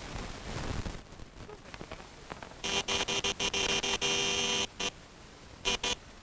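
Loud Bicycle Mini electronic bike horn, which sounds like a car horn: a few short honks running into a long blast partway through, then two short beeps near the end.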